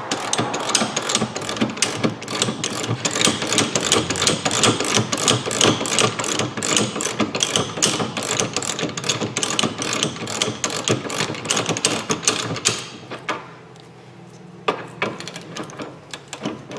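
Ratchet wrench clicking rapidly as a nut is spun off a bolt, with quick, uneven clicks that stop about 13 seconds in, followed by a few scattered clicks.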